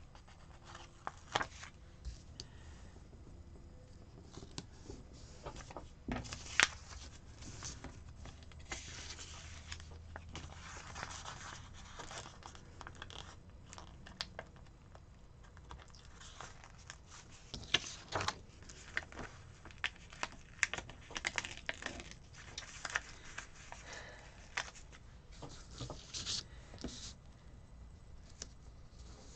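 Paper stickers being peeled off a sticker sheet and pressed onto planner pages, with soft paper rustling and scattered light taps and clicks.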